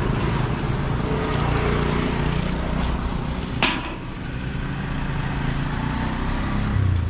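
A steady low engine rumble, with a single sharp click about halfway through.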